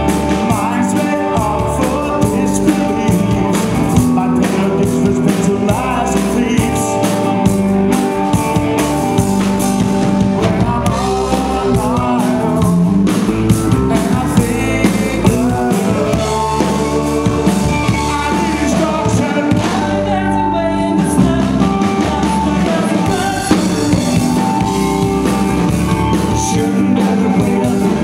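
Rock band playing live and amplified: a man singing over a drum kit, bass guitar and electric guitar.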